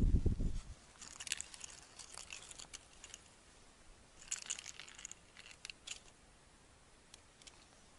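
Light crinkling and rustling from small things handled in the hands, in two short spells, about a second in and again about four seconds in. A brief low rumble comes before them at the very start.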